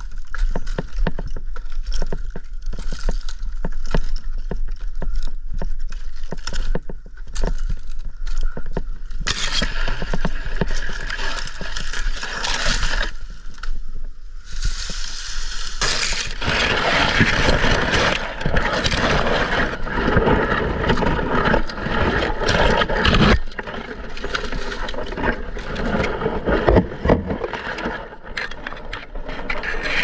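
Dry palm leaf bases on a Mexican fan palm scraping, rustling and crackling against a climber's rope lanyard, gloves and gear. Many short clicks and knocks come first, then from about halfway a denser, steadier scraping noise.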